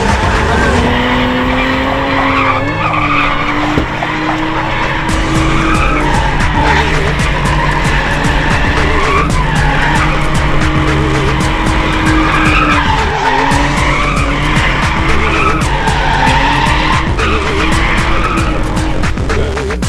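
BMW E36 325i's M50B25 straight-six revving up and down through repeated drifts, its pitch rising and falling again and again, with the rear tyres squealing. Music with a steady beat runs underneath.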